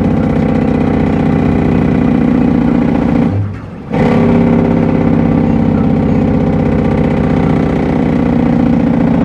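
Cummins N14 inline-six diesel of an International truck pulling under load, heard from inside the cab. About three and a half seconds in, the engine note drops away for about half a second as the throttle is lifted for a shift of the 13-speed gearbox, then it pulls strongly again.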